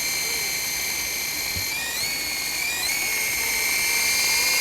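Remote-controlled toy helicopter in flight: a steady high-pitched whine from its motor and spinning rotors over a rush of air. The pitch wavers briefly twice, about two and three seconds in.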